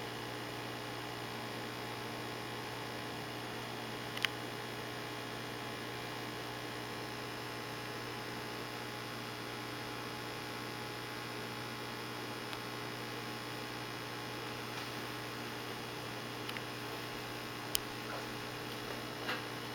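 Steady electrical hum from running aquarium equipment, with many even tones over a low drone. A few sharp clicks come through, one about four seconds in and two near the end.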